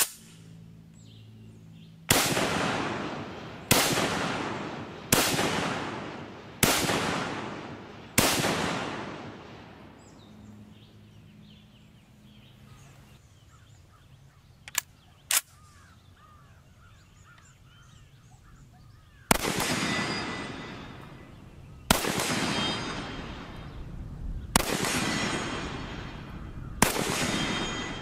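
Walther G41(W) semi-automatic rifle firing 7.92×57mm Mauser rounds. Five shots come about a second and a half apart; after a pause, four more follow. Each loud crack trails off in a long rolling echo.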